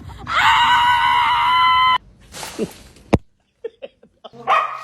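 A long, high-pitched cry held at nearly one pitch for almost two seconds, cut off abruptly. A short rustle and a single sharp click follow.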